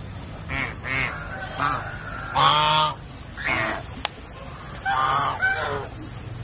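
White domestic goose honking, a series of separate calls with the longest and loudest about two and a half seconds in.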